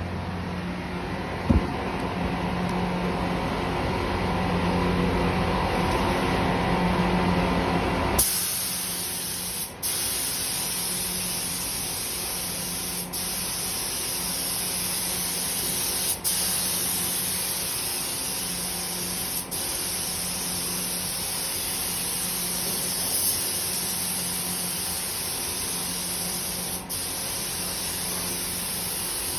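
Compressed-air paint spray gun spraying with a steady hiss, the flow breaking off briefly about every three seconds as the trigger is released between passes. For the first eight seconds or so a lower humming machine sound is heard instead, and it cuts off abruptly.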